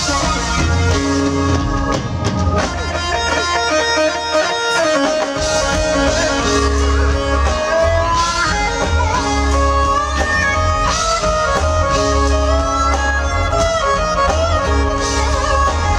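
Live band playing: a Roland keytar lead line with sliding pitch bends over electric bass, guitar and drums. The low bass drops away for a couple of seconds about three seconds in, then comes back with a pulsing beat.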